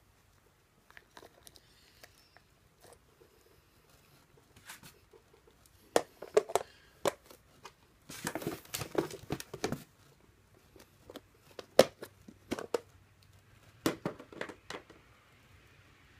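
Clear plastic insect cases being handled and moved in a styrofoam shipping box: scattered plastic clicks and knocks, with a denser stretch of crinkling and rustling about eight seconds in.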